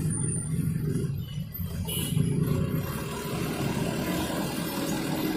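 Road traffic crossing at low speed: the engines of a box truck and cars making a steady low rumble.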